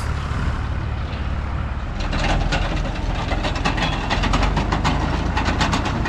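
Massey Ferguson 35 tractor engine running steadily. From about two seconds in, a fast, dense clattering rattle joins it: the Massey Ferguson 711 potato harvester's spinner turning.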